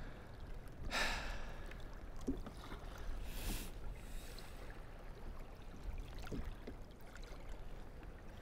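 Faint water and wind noise around a sea kayak on a choppy sea: a low steady rumble with two short rushing bursts, one about a second in and a hissier one a few seconds later, and a few faint ticks.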